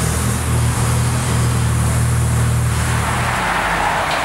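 Jaguar XKR-S's supercharged 5.0-litre V8 idling with a steady low note through its quad exhausts. About three and a half seconds in, the low engine tone fades and a broader hiss-like noise takes over.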